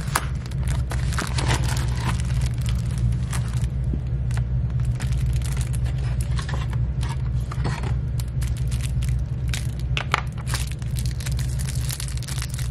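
Paper envelopes and plastic-wrapped stationery packs being handled, giving scattered rustles, crinkles and small taps over a steady low hum.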